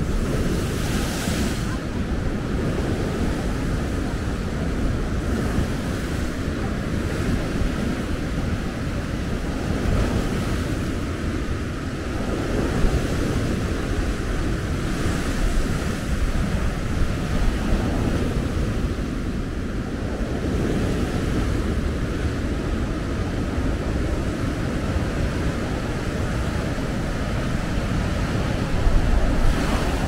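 Big waves crashing onto the shore, with a continuous surf wash that swells and eases every few seconds. Strong wind buffets the microphone throughout.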